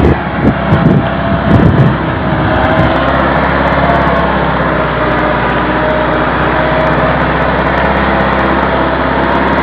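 Massey Ferguson 385 tractor's diesel engine running hard under heavy load as it drags an overloaded sugarcane trolley, a steady, even engine note, with a few uneven low thumps in the first two or three seconds.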